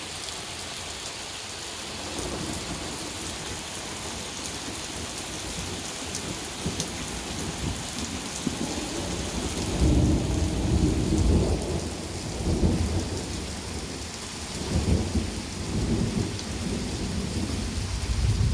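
Steady rain falling, then about ten seconds in a long, deep rumble of thunder rolls in after a lightning flash, swelling and fading in several waves.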